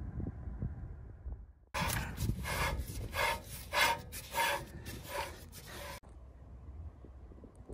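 A low wind rumble on the microphone, then rhythmic back-and-forth scraping by hand, about seven strokes in four seconds, which cuts off suddenly.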